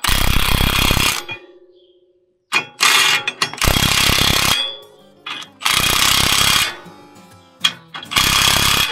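Cordless impact wrench, a Milwaukee M18 Fuel mid-torque, hammering nuts tight on a drill's opener bracket in four bursts of one to two seconds each, with short pauses between.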